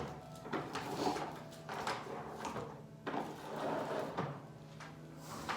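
Handling noises: a scatter of light knocks, clicks and rustles, as of the vacuum cleaner and its cord being moved about before it is switched on, over a faint steady hum.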